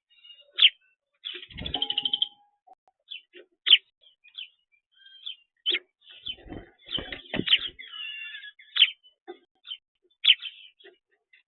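Small birds chirping in short, sharp calls, with a quick rattling trill about two seconds in. A few low knocks or rustles come between about six and seven and a half seconds.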